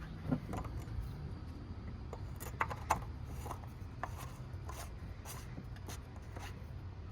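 Light scraping and a few small clicks as the engine's oil filler cap is screwed back on, over a low steady background hum.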